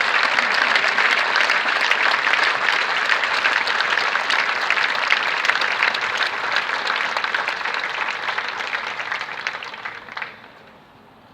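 Crowd applauding: dense clapping that thins slightly and then stops about ten seconds in.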